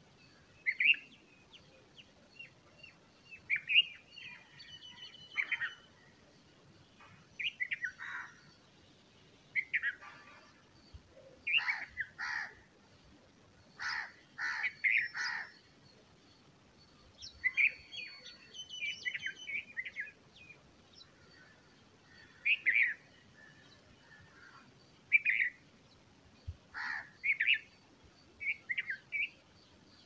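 Bulbul calls: short chirping notes in irregular clusters every second or two, with a few thin, higher whistles in between.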